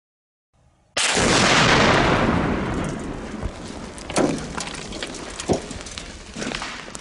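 A car blowing up: one loud explosion about a second in, its rumble dying away over the next two seconds or so, followed by a few scattered sharp knocks.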